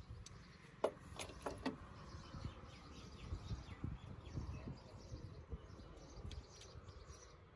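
Quiet handling of small carburetor and throttle-cable parts: a few light clicks about a second in, over a faint low rumble.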